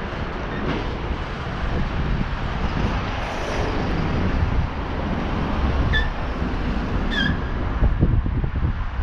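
Wind rumbling on the microphone over the steady noise of road traffic, with two short high chirps about six seconds in and again a second later.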